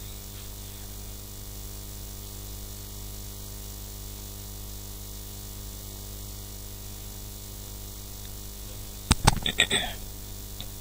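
Steady electrical mains hum with hiss. Near the end comes about a second of computer keyboard typing, a quick run of key clicks.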